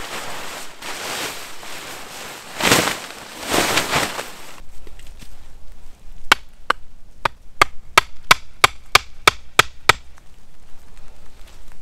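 A quick, even run of about a dozen sharp chopping strikes into wood, roughly three a second. Before it, a rushing noise swells twice.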